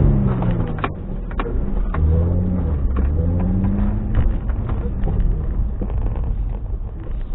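Car engine heard from inside the cabin: the revs fall, climb again and fall back about two seconds in, then it runs at lower revs. Scattered short clicks sound over the engine.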